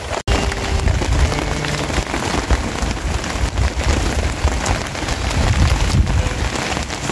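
Steady rain pattering, a dense hiss of fine drops with a low rumble underneath. The sound cuts out for an instant about a quarter second in.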